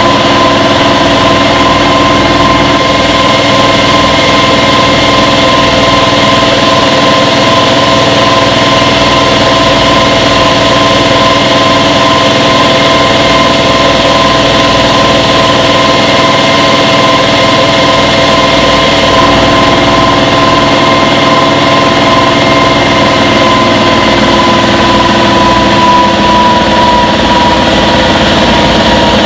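Front-load washing machine running its spin cycle: a loud, steady motor whir with a high whine that dips slightly in pitch near the end.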